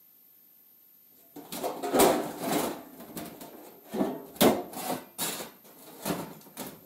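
Steel creeper parts being handled on a workbench: the sheet-metal bed and frame pieces clanking and scraping against each other. It starts about a second and a half in, with several sharp knocks.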